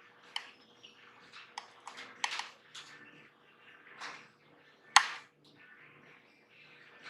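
Small parts and hand tools being handled: about half a dozen sharp clicks and knocks, the loudest a single knock about five seconds in, over a faint steady hum.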